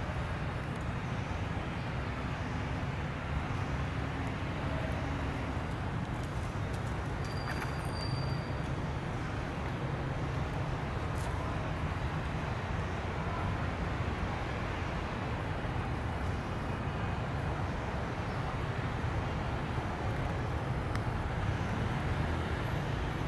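Steady low outdoor background rumble with an even hiss above it, unchanging throughout.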